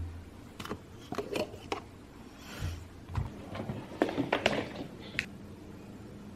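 A cup taken down from a kitchen cabinet and the cap twisted off a plastic juice bottle: a string of short clicks and knocks, loudest in a cluster about four seconds in.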